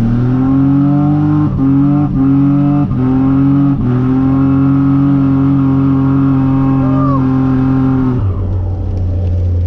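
Nissan Navara's VG30 3.0-litre V6 revved hard in third gear for a burnout, with a few short dips in pitch in the first four seconds, then held steady at high revs while the rear wheels spin through the limited-slip diff. About eight seconds in the revs drop away to a low idle.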